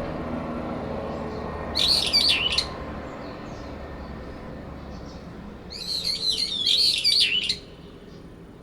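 Brown-eared bulbuls calling in a territorial dispute: two loud bouts of high, wavering calls, one about two seconds in and a longer one from about six to seven and a half seconds.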